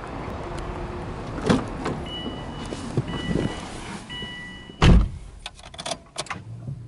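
Subaru Impreza WRX STi's driver's door being opened and got into, with a car's warning chime beeping in three short stretches, then the door slamming shut about five seconds in, the loudest sound. A few clicks follow, and a low steady hum starts near the end.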